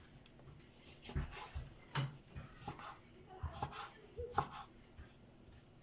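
Kitchen knife slicing oranges into thin rounds on a cutting board: a handful of separate cuts and taps of the blade against the board, spaced irregularly about a second apart.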